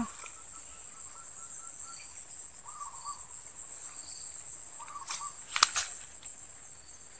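Steady high-pitched drone of insects, with a few faint short chirps. A sharp click about five and a half seconds in.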